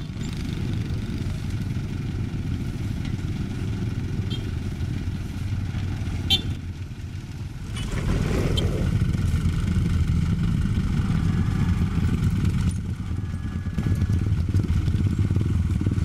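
Diesel engines of road-paving machinery running steadily, growing louder about halfway through, with a couple of short knocks.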